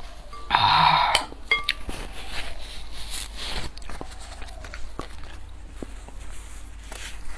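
Close-miked eating sounds: chewing and small mouth clicks. A short loud noisy burst comes about half a second in, and a light clink of a utensil about a second and a half in.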